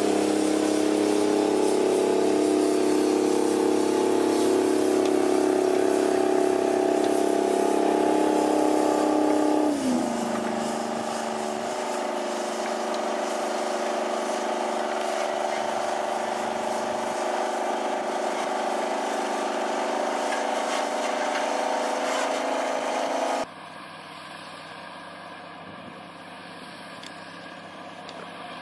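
Large farm tractors' diesel engines running steadily under heavy load as they pull multi-bottom ploughs. The engine note drops in pitch about ten seconds in. Near the end the sound cuts abruptly to a quieter, lower-pitched engine.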